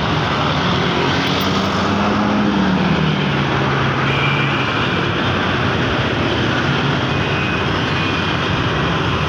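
Intercity coach's diesel engine pulling away and passing close by, loud under acceleration; the engine note rises and then drops about three seconds in. Steady traffic noise with motorcycles runs underneath.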